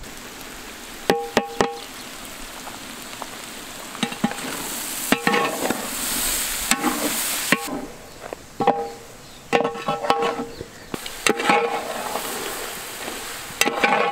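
Goat intestine masala sizzling in a large metal cooking pot while a long metal ladle stirs it. The ladle scrapes and knocks against the pot again and again, and each knock rings.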